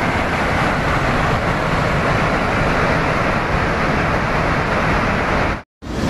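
Floodwater from a swollen mountain river rushing steadily, a dense unbroken noise. It cuts out briefly near the end, then resumes.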